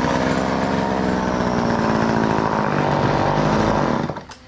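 Old two-stroke chainsaw engine running steadily, then cutting off about four seconds in.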